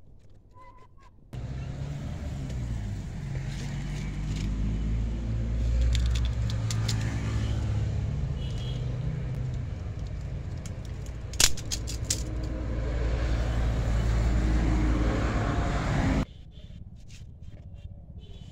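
A motor vehicle's engine running close by, its pitch rising and falling, starting abruptly about a second in and cutting off abruptly near the end. Scattered light clicks and one sharp snap about halfway through.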